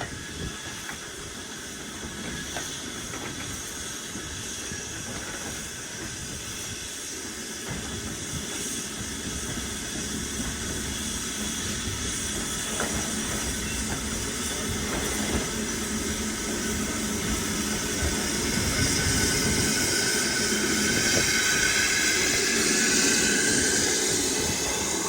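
Steam locomotive with a steady hiss of steam over a low train rumble. The hiss grows louder over the last several seconds.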